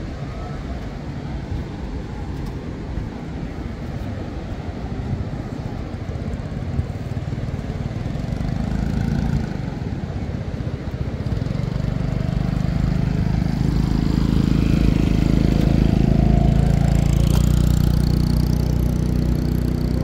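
An engine drones steadily, growing louder through the second half and easing off near the end as it passes close by, over a steady wash of outdoor noise.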